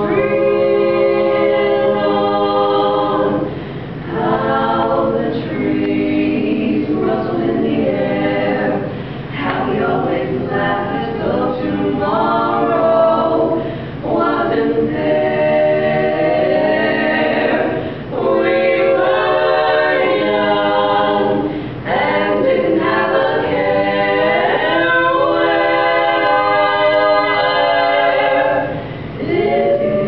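Women's quartet singing a cappella in four-part harmony, with held chords in phrases broken by short breaths.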